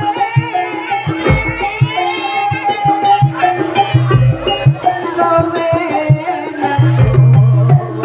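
Live Javanese jaranan music: kendang hand-drum strokes drive a busy rhythm under a held, wavering melody line, with deep gong tones sounding again and again.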